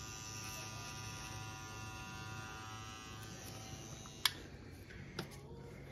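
Pen-style rotary tattoo machine buzzing steadily as it works the needle into skin, stopping about four seconds in. A sharp click follows, and a smaller one about a second later.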